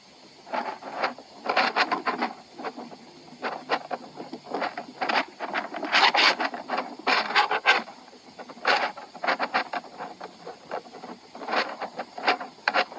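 Irregular bursts of rubbing and scraping noise, close together and uneven, starting about half a second in. It is a recording that the artist presents as the sound of his sexual act.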